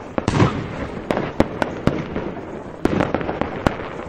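Fireworks crackling, with many sharp pops over a hissing rush that swells near the start and again about three seconds in.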